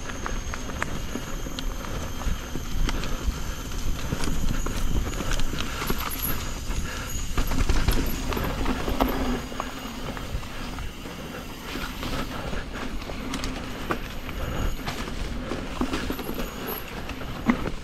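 Yeti SB150 mountain bike riding down a dirt trail: tyres rolling over rough ground with a steady low rumble and frequent rattling knocks and clicks from the bike.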